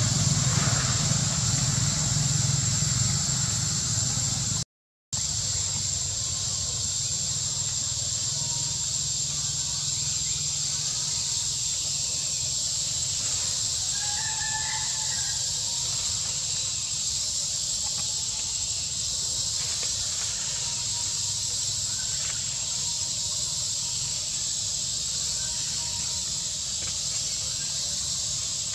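Steady high-pitched drone of forest insects over a low steady rumble. A few faint short calls come about halfway through. The sound cuts out completely for a moment about five seconds in.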